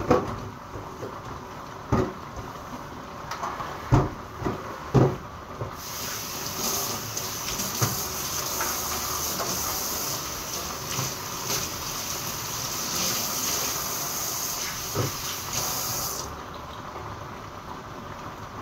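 Dishes knocking and clattering in a stainless steel kitchen sink, then the tap running with a steady hiss for about ten seconds, with a few knocks of dishes under the water, before it is shut off.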